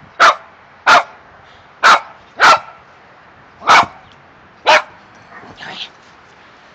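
Yorkshire terrier barking in play: six short, sharp barks over about five seconds, followed by a fainter, longer sound near the end.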